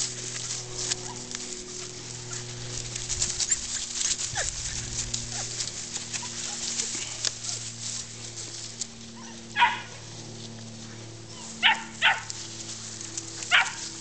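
Young Hanging Tree Cowdog puppies barking at goats they are holding at bay: four short, sharp yaps in the second half, two of them close together.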